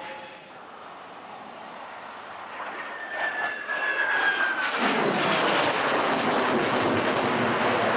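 Saab Gripen C fighter's Volvo RM12 turbofan in a fast flyby: a high whistling tone gliding downward, then a loud, steady jet roar from about five seconds in.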